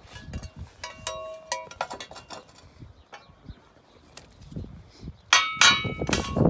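Thin stainless steel sheet clanging and ringing as it is handled and tapped, then a quick run of louder ringing hammer strikes on the sheet near the end.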